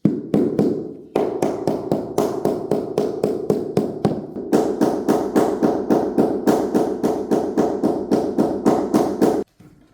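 Rapid, even tapping of a mallet on laid floor tiles, about four dull knocks a second, bedding and levelling the tiles. A short pause about a second in; the tapping stops suddenly near the end.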